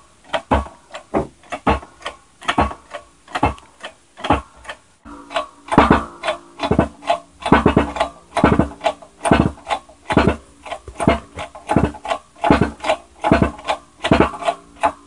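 Music with a busy percussive beat; held chord tones join about five seconds in.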